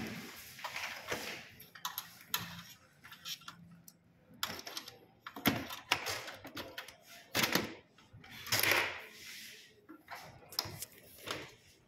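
Irregular plastic clicks, knocks and scrapes from the inside of an HP Laser Tank 2606sdw laser printer as its drum unit's latch and side gear are pressed and the unit is worked free by hand.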